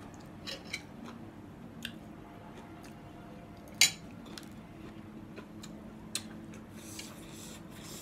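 Spoon and chopsticks clinking against a ceramic soup bowl and plate: a few scattered light clicks, with one sharper clink about four seconds in and a short rustle near the end.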